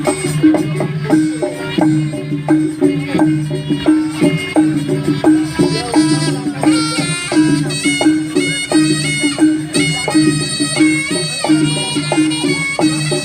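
Jaranan senterewe ensemble playing at a quick pulse: dense drum strokes over steady low gong-like tones, with a reedy slompret (Javanese shawm) melody coming in about halfway through.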